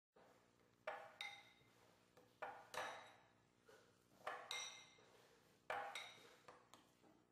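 Metal fork mashing ripe bananas in a plastic bowl: clinks against the bowl, mostly in pairs about every second and a half, each ringing briefly.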